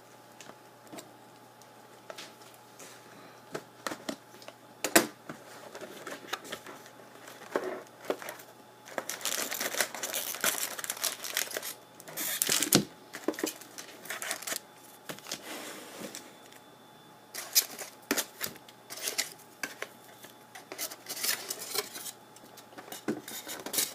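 Trading card packs and their cardboard box being opened and handled by hand: wrappers tearing and crinkling, with irregular clicks and rustles as the cards are shuffled. The sound comes in busy spells with quieter gaps between them.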